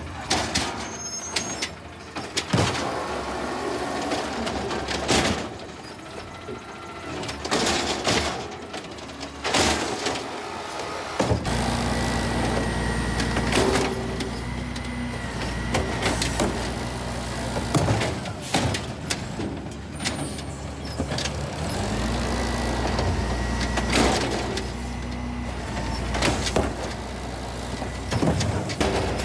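Automated side-loader garbage trucks dumping carts. First a 2016 Peterbilt 320 on green waste, with repeated sharp clanks and knocks as its arm tips the bins and the lids slam open. Partway through, an Amrep diesel side loader's engine runs loud and steady while its arm lifts and dumps recycling carts, with bangs as the cans hit the hopper.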